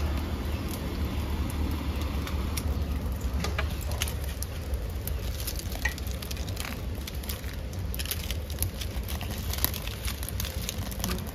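Firewood burning in a cooking fire, crackling with scattered sharp pops that come thicker in the second half, over a steady low rumble.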